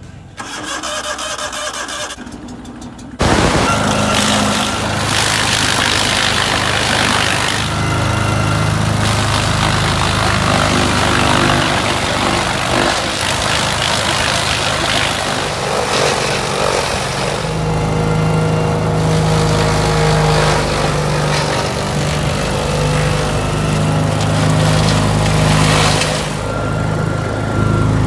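Vermeer wood chipper running loud and steady while green corn stalks are fed into its hopper and shredded into silage. It is quieter with a regular ticking for about the first three seconds, then loud from there on.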